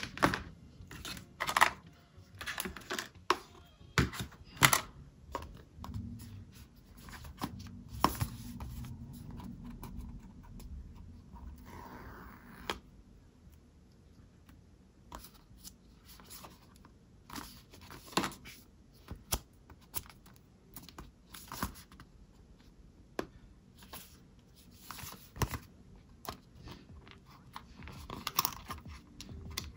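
Product packaging being handled and torn open: irregular clicks, taps and scratchy tearing rustles, with a longer rustle about twelve seconds in.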